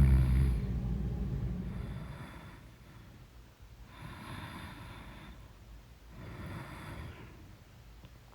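A sleeping person snoring: a loud low snore fades out in the first second, then three quieter breaths follow about two seconds apart.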